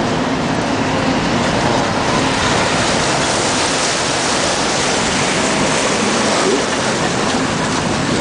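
Amphibious duck tour vehicle underway on its propeller: a steady rush of churning wake water along the hull, with the engine running underneath.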